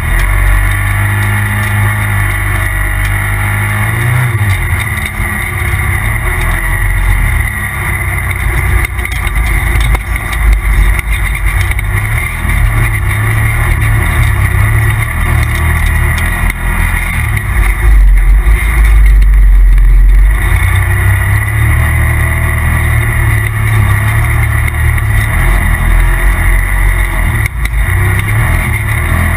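Polaris RZR Turbo side-by-side's turbocharged twin-cylinder engine running under load as it is driven over sand, the engine note rising and falling with the throttle. About two-thirds of the way through, a deep rumble swells for a couple of seconds and is the loudest part.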